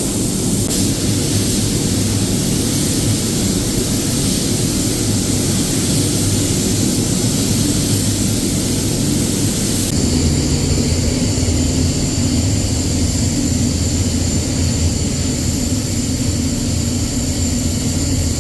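Steady rushing airflow and fan hum of a paint spray booth, with a broad hiss over a low hum; the tone shifts abruptly about ten seconds in.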